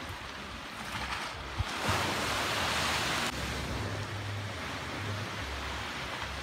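Wind rushing over the microphone outdoors, with low buffeting now and then. A louder gust swells about two seconds in and drops off suddenly about a second and a half later.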